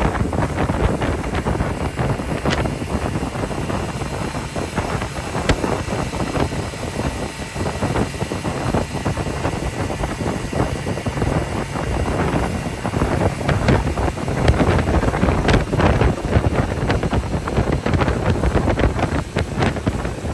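Wind buffeting the microphone on a small motorboat under way, over the steady run of its engine and the splash of the wake.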